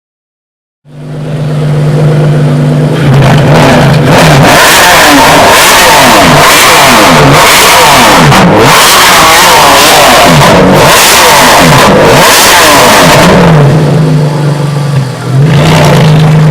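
Ferrari Enzo's naturally aspirated V12 with a decatted Quicksilver exhaust, very loud. It comes in about a second in and idles, is revved in about six quick rises and falls, then settles back to idle with one more short blip near the end.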